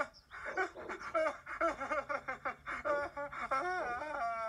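High-pitched cartoon puppet voice sobbing in quick, broken bursts, ending in a long, drawn-out wail: a character who is upset and crying.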